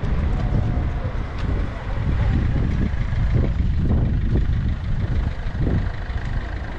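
Street traffic: cars driving past on a town road, a steady low rumble.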